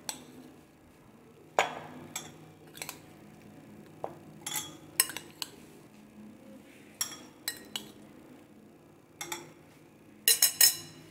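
Spoon clinking against a ceramic bowl and drinking glasses as diced mango is scooped into the glasses: scattered sharp clinks every second or so, with a quick run of them near the end.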